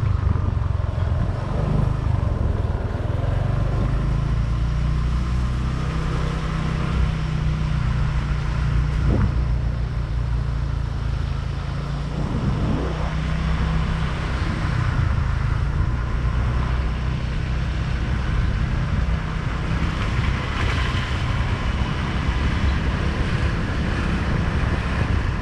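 Motorbike engine running on the move, with wind rumbling over the microphone. The engine briefly rises in pitch twice, about a third and halfway through.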